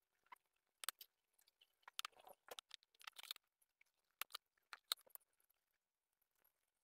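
Faint scattered clicks and short scrapes of a craft knife, its blade heated with a lighter flame, cutting into the plastic back of a wall clock.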